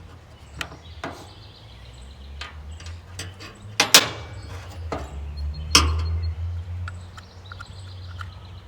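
Scattered clicks, knocks and clinks of hand tools and small metal parts being handled on a chainsaw body as its chain guides come off and bumper-dog screws go in. The loudest knock is about four seconds in, with another near six seconds, over a steady low hum.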